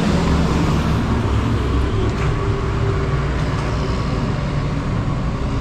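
Road traffic: a motor vehicle's engine running close by over a steady rumble of traffic.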